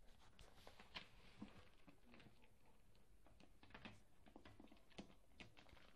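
Faint, scattered small ticks and soft rustles from Korat kittens licking their paws and clambering over each other on a fleece blanket.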